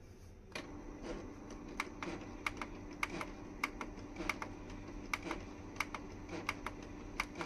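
Canon PIXMA G3411 control-panel plus button pressed over and over, a quick run of sharp plastic clicks at about two or three a second, stepping the setup menu number up toward the print head cleaning setting. A steady low hum starts about half a second in underneath.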